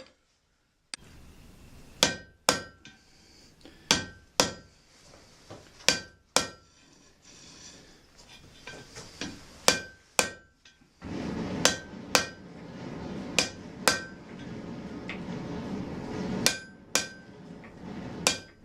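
Blacksmith's hammer striking hot iron on an anvil, the blows mostly in pairs about half a second apart, each with a short metallic ring. From about eleven seconds in, a steady rushing noise runs under the blows.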